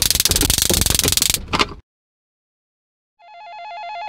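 Loud electric crackling buzz of a stun-gun flashlight being fired, cutting off suddenly a little under two seconds in. After a second of silence, a telephone starts ringing, a warbling ring that grows louder.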